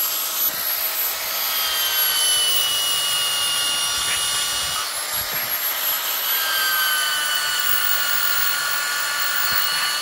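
Small electric hand drill spinning a round chainsaw file against the cutters of a chainsaw chain, sharpening the teeth: a steady high-pitched whine over a grinding hiss. The whine's pitch shifts slightly a few times as the file works the chain.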